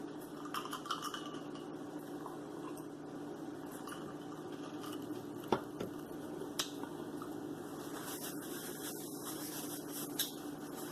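Close-up eating sounds: soft chewing and wet mouth noises, with three sharp clicks spread through, over a steady low hum.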